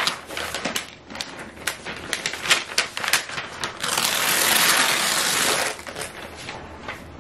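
Packaging being handled: a run of small clicks and crinkles of paper and cardboard, then a steady paper rustle for about two seconds as the protective paper wrap is slid off the laptop.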